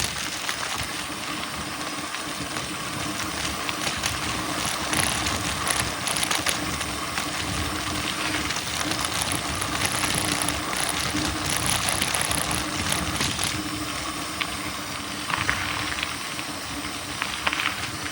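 Mountain bike ridden along a dirt trail: tyre noise on the ground with the drivetrain rattling and clicking, scattered sharper clicks near the end.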